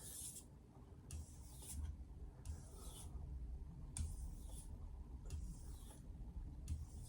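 Knife blade stroked across a Chosera 3000 whetstone: a series of faint scraping hisses, about one a second, as light deburring passes are made.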